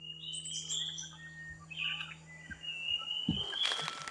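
Several small birds chirping and whistling, some notes gliding, over a steady low hum that stops about three seconds in.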